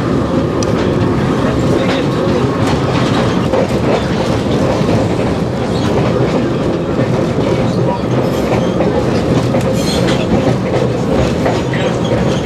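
Ride noise aboard a 1920 Brill electric railway car under way: a steady, loud rumble of wheels on track, with a faint steady hum and scattered clicks and rattles of the wheels and car body over the rails.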